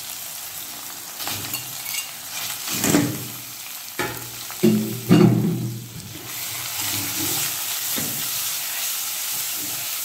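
Minced meat sizzling as it starts to fry with onions in hot ghee in a stainless steel pot, while a spoon stirs and scrapes against the pot in a few louder strokes. The sizzle settles into a steady hiss from about six seconds in.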